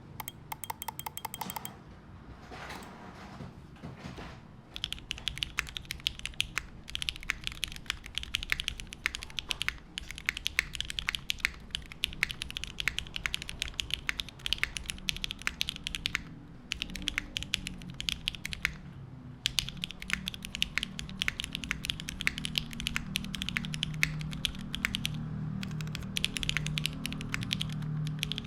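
Mechanical keyboard typing at a steady pace, with short pauses. The board is an aluminium-plate, O-ring-mounted custom with lubed, broken-in Cherry MX Black Ultraglide linear switches and GMK keycaps. Typing starts about five seconds in, after a brief run of fast, even ticks.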